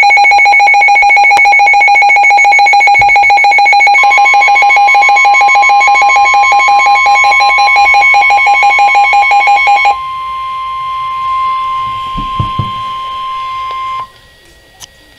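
Emergency Alert System attention tones: a loud, rapidly pulsing alarm tone, with a second, higher tone joining about four seconds in. About ten seconds in the pulsing stops and a single steady tone carries on more quietly, cutting off about a second before the end.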